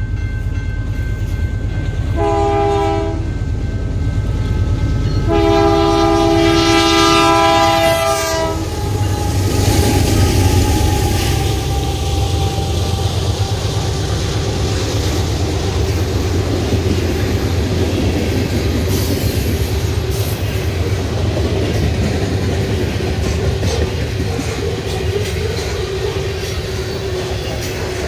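Canadian Pacific freight train at a level crossing: the diesel locomotive's multi-note air horn sounds a short blast, then a long one whose pitch drops as the locomotive passes. The locomotive's rumble follows, then loaded covered hopper grain cars roll by with the clickety-clack of wheels over the rail joints.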